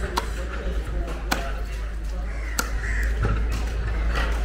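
Large fish knife chopping through a cobia on a chopping block: three sharp strikes about a second apart.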